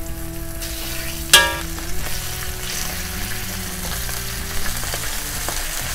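Chicken breasts sizzling in hot olive oil in a cast-iron skillet as more pieces are laid in, with one sharp clink about a second in. Soft background music plays underneath.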